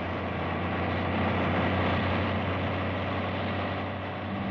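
Truck engine running on the road, a steady low drone with a rush of noise over it, swelling over the first two seconds. A second steady hum joins just before the end.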